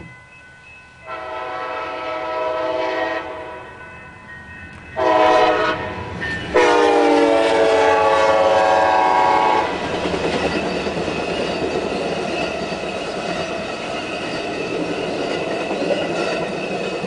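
Amtrak passenger train passing at about 56 mph: its locomotive horn blows three chorded blasts, long, short and long, the last the loudest. Then comes the steady rumble and wheel clatter of the passing bi-level Superliner cars.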